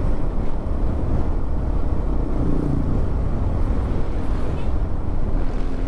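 Steady engine and road noise of a moving vehicle, heaviest at the low end, with no pauses.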